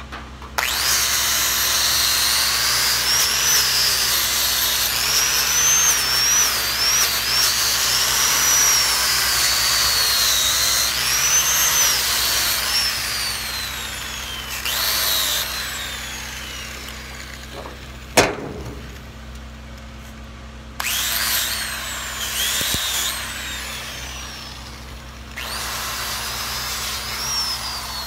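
Angle grinder with a wire wheel brushing a freshly welded steel flange. Its high whine rises and dips as the wheel is pressed on and eased off. It runs in three spells, spinning down between them, with one sharp knock in the longer pause.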